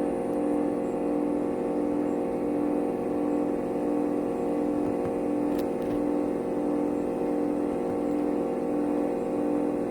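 2011 Bryant heat pump running with a steady hum, one tone in it pulsing in a slow, even beat a little more than once a second.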